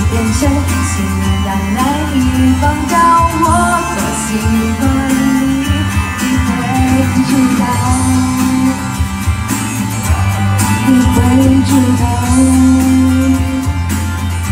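A woman singing a Mandarin pop love song into a microphone over backing music with guitar, amplified through stage PA speakers.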